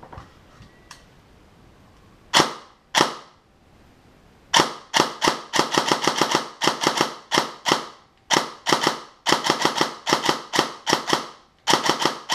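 Systema PTW airsoft M4 with a Kumi open-cage motor and a suppressor firing indoors: two single shots, then from about halfway strings of rapid shots in quick succession, with a short, sharp, muffled snap to each.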